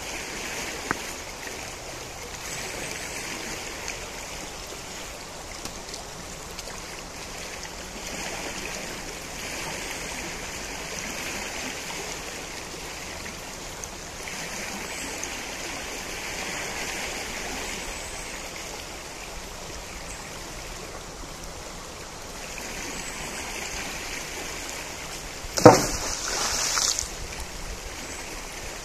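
The Najerilla river flowing, a steady rush of water. Near the end a sudden loud knock cuts in, followed by about a second of louder noise.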